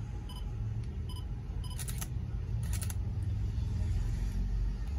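Nikon D5600 DSLR taking a photo in live view: two short electronic beeps as the autofocus locks, then two mechanical shutter clacks about two-thirds of a second apart. A steady low rumble runs underneath.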